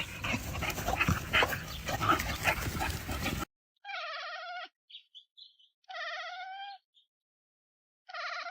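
A scratchy, clattering noise with many small clicks for about three seconds. Then a pet animal cries out three times in drawn-out calls of even pitch, with a few faint short chirps between them.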